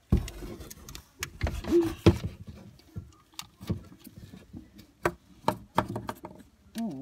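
Handling noise: irregular knocks, taps and rubbing as a phone is held and shifted against skin and the cardboard walls of a box fort.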